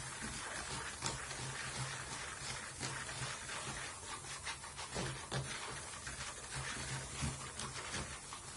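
Stirring a fizzing solution of boric acid and baking soda in water with the plastic handle of a screwdriver: a continuous rubbing and scraping against the container, with many small clicks, over a low steady hum.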